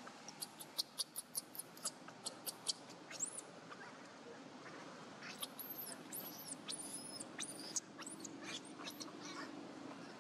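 High-pitched animal squeaks and chirps: a quick run of about a dozen short ones, roughly four a second, then a rising squeak and, after a pause, a series of longer arching squeals.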